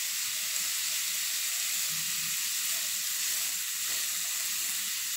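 Shredded cabbage, carrot, beans and onion sizzling steadily in hot oil in a frying pan as they are stir-fried with a wooden spatula.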